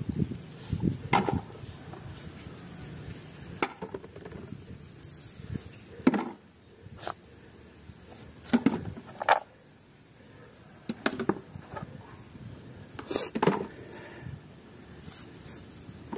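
Mud-coated plastic toy animals being handled and set down in a tray: scattered irregular wet taps, knocks and squelches.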